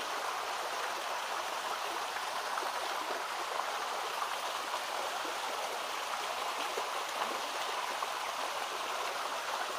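A forest stream flowing steadily: an even, unbroken wash of running water.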